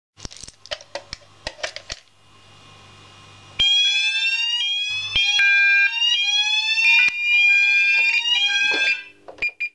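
Fire alarm sounders going off with a slow rising sweep tone that drops back and rises again over and over, several sweeps overlapping out of step; they start about a third of the way in and stop shortly before the end. A few soft clicks come before them.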